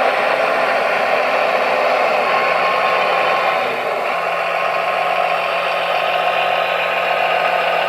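Radio-controlled model trucks and construction machines running: a steady mechanical whir and rattle of small motors and gearing, its tone shifting slightly about four seconds in.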